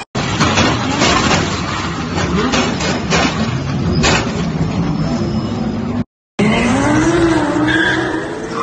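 Race car engines running amid a series of sharp crashes as GT cars pile into each other on a street circuit. After a short cut, a single car's engine revs up with a steadily rising pitch.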